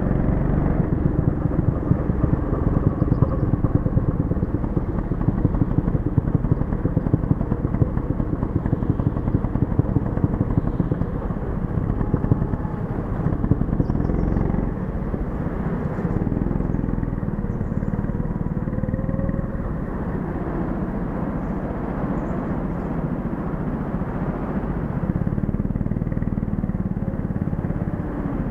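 Go-kart engine running hard, heard close up from on board the kart, its note rising and falling through the corners. The rough rapid pulsing eases to a steadier, slightly quieter drone about halfway through.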